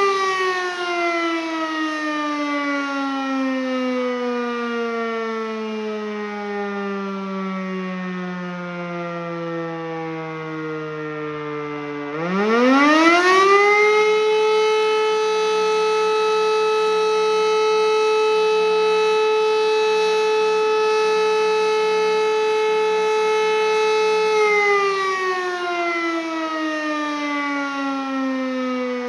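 An E57 electromechanical civil-defense siren winding down, its tone falling slowly for about twelve seconds. It then spins up quickly to its full steady wail, holds it for about eleven seconds, and begins winding down again.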